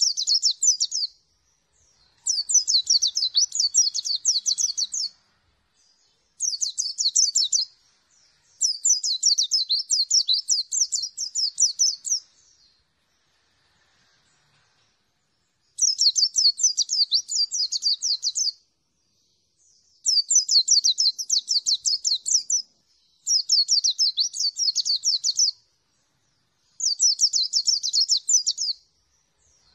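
A white-eye (pleci) sings a high, fast, chattering trill in repeated phrases of one to four seconds, with short pauses between them and a longer pause around the middle.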